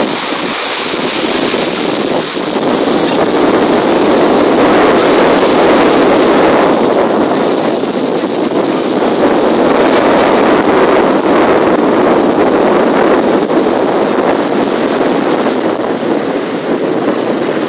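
Rough sea waves surging in a loud, continuous wash that swells and eases, with heavy wind buffeting the microphone.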